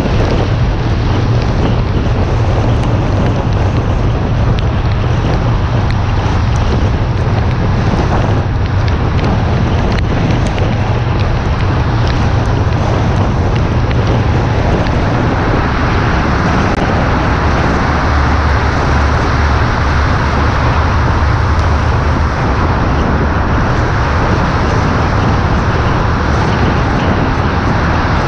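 Wind rushing over a hood-mounted camera and tyres hissing on a wet road as a car drives along a highway in the rain. About halfway through the noise grows fuller and denser as the car enters a tunnel.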